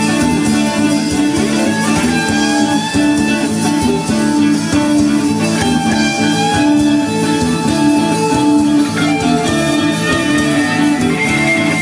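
A band playing, with a guitar melody of gliding, bent notes over steady chords and bass.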